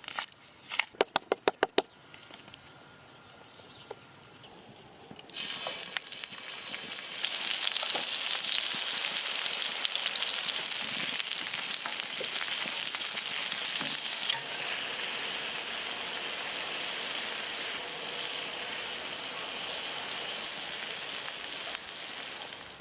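Food sizzling as it fries in hot oil in a pan. The sizzle starts about five seconds in, grows louder about two seconds later and eases slightly midway. About a second in there is a quick run of about eight sharp taps.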